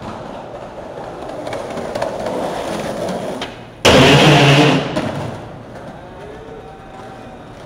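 Skateboard wheels rolling on sidewalk concrete, the noise building as the board picks up speed. About four seconds in comes a sudden loud burst of noise lasting about a second, then the rolling continues more quietly.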